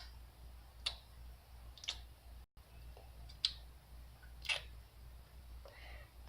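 Light clicks and taps, about six of them at uneven gaps: small plastic toy figures being handled and set down on a surface.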